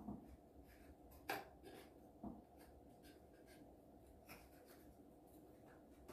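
Near silence with faint handling sounds of small model parts being fitted and pushed into place: light rubbing and a few small clicks, the sharpest about a second in and another about two seconds in.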